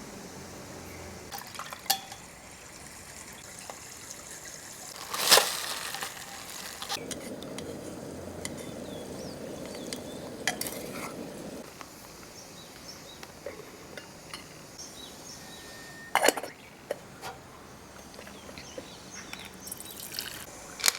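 Tableware and cutlery being handled: scattered clinks and knocks, with a louder knock about five seconds in and a cluster of knocks near sixteen seconds. A stretch of steady rushing noise runs from about seven to eleven seconds.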